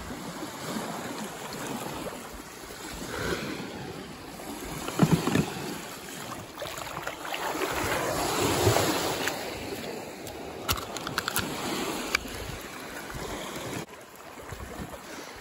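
Small Baltic Sea waves washing up over a sandy beach, swelling and ebbing, with wind on the microphone.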